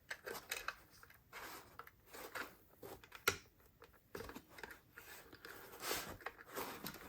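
Faint small clicks and scrapes of hands working at an HO-scale model steam locomotive's body, trying to lift it off the chassis, with one sharper click about three seconds in.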